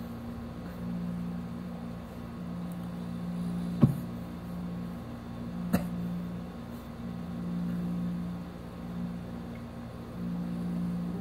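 A low mechanical hum, with a deeper drone in it that swells and fades every second or two. Two sharp clicks stand out, about four and six seconds in.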